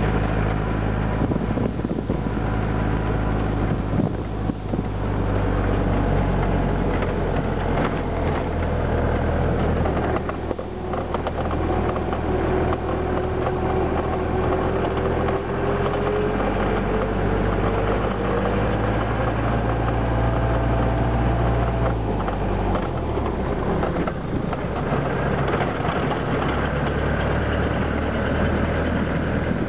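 Engine of a wooden-bodied truck bus running while it drives, heard from on board, with a steady low drone whose note shifts a few times. A rising whine comes in about halfway through.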